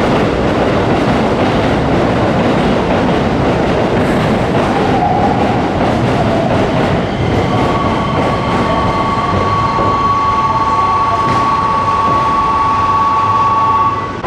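A Keikyu electric train running along the platform with a continuous rumble and clatter of wheels on rail. From about halfway a steady two-pitched high squeal sets in, which stops abruptly near the end.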